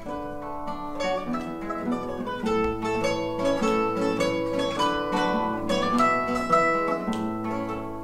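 Acoustic guitar and mandolin playing together: a plucked instrumental introduction to an Apulian folk song, before the voice comes in.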